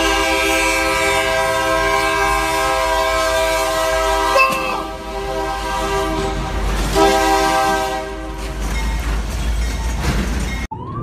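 Locomotive air horn sounding a long, steady chord, then after a short break a second, shorter blast, over the low rumble of the train. After the horn stops, only the train's running noise remains until it cuts off suddenly near the end.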